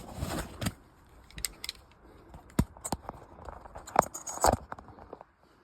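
Sparse, irregular sharp clicks and taps, about seven of them, with a louder pair about four seconds in.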